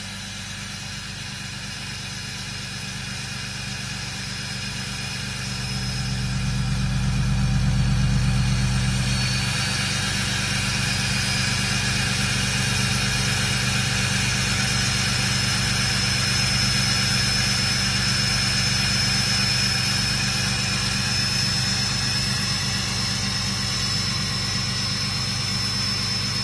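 Dodge Ram diesel pickup idling after a cold start, a steady low engine note with a high, steady whine over it that sounds like a jet engine. The engine swells louder for a few seconds, about six to nine seconds in, and the whine grows stronger after that.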